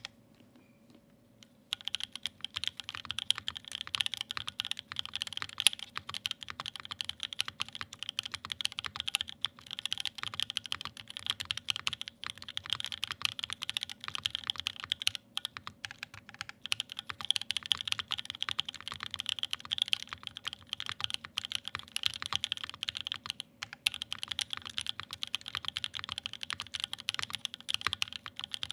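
Fast, continuous typing on a Wilba.tech Thermal mechanical keyboard with lubed and filmed Creamsicle switches, GMK doubleshot ABS keycaps and an aluminium plate. The keystrokes start about two seconds in and run on with a few short pauses.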